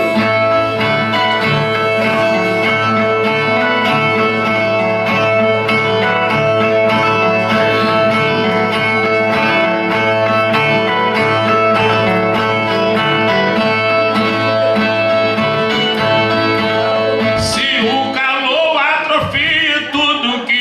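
Repentista's viola strummed in the repeating instrumental interlude between sung stanzas of a cantoria. A singing voice comes in near the end.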